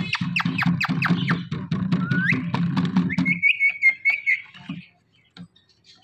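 Rose-ringed parakeet calling: a quick run of short falling notes, then a rising note and a warbling whistle about a second long. Background music plays under it and stops about halfway through.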